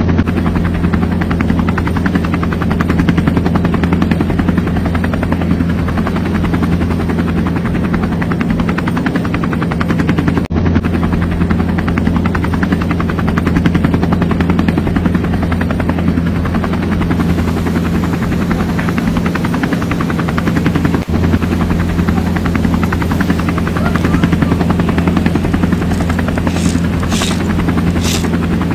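Helicopter rotor chopping rapidly over a low, steady engine drone, starting abruptly and holding an even level.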